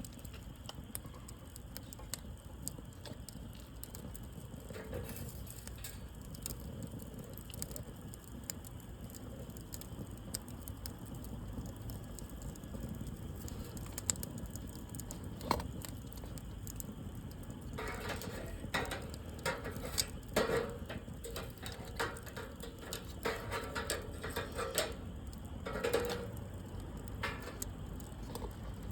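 Wood fire crackling over a steady low rumble, with scattered sharp pops. In the second half the crackling grows busier and louder for several seconds.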